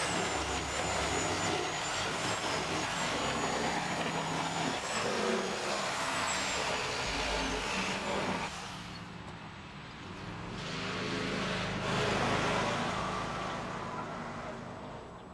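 A motor vehicle running close by, loud for about eight seconds with a thin high whine over it, then easing off and swelling again.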